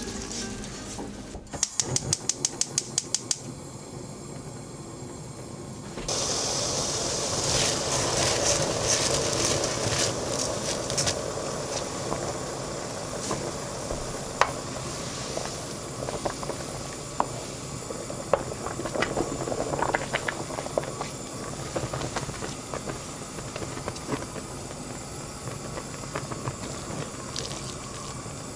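A gas stove burner is lit: the igniter clicks rapidly for about two seconds, then about six seconds in a steady burner hiss starts under a pot of water being heated, with scattered small clicks and taps.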